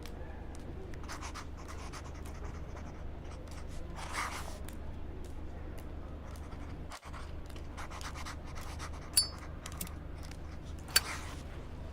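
Card-table sound effects: light scratching, rustling and small clicks, like cards sliding on the table and chips being handled, over a steady low room hum. Two sharp clicks come about nine and eleven seconds in.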